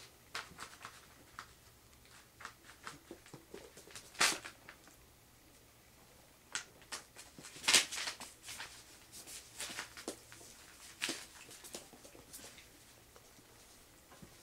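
Puppies moving about on bedding and newspaper in a wire pen: scattered small scratches, scrabbles and rustles, with two louder sharp rustles about four and eight seconds in.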